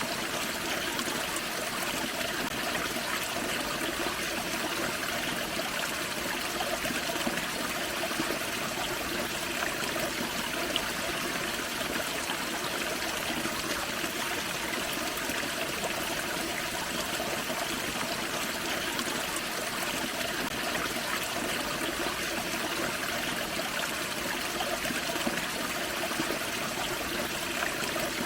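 Forest creek with a small waterfall: water splashing and trickling over rocks in a steady, even rush.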